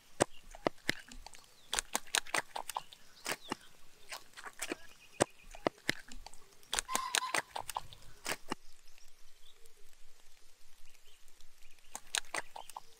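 Knife cutting through the bones and cartilage of a raw whole chicken on a wooden board: a run of sharp cracks and snaps through most of the first eight seconds, then a few more near the end.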